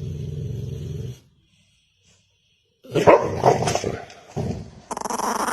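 A dog growling low and steady, cut off about a second in. After a gap, it gives gruff growling barks around three seconds in, and near the end a high whining cry begins.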